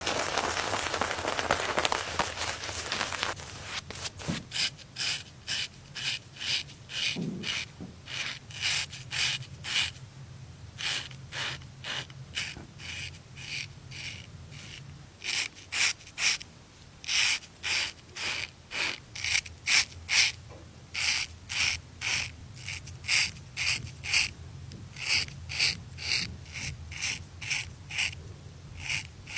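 Razor shaving: short, dry scraping strokes of a blade over stubble, repeated about one to two a second, after a steady hiss in the first three seconds or so.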